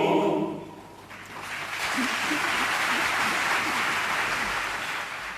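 A congregation applauding: the choir's singing stops in the first half-second, then the clapping swells about a second in and slowly fades toward the end.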